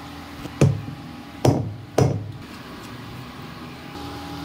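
Pakoras deep-frying in mustard oil in a kadhai, sizzling steadily, with three sharp knocks about half a second, a second and a half and two seconds in.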